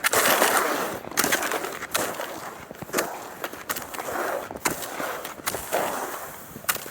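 Cross-country skis scraping and sliding over snow in a steady stride, about one swell of scraping a second, each starting with a sharp click.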